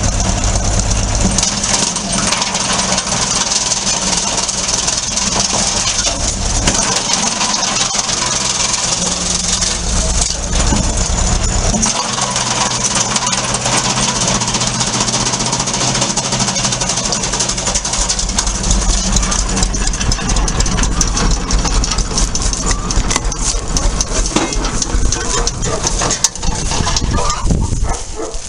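Tractor-PTO-driven homemade drum wood chipper with two rotating knives running and chipping branches: a steady loud din of the tractor engine and spinning drum with dense crackling clicks of wood being cut. The engine's low hum changes strength several times.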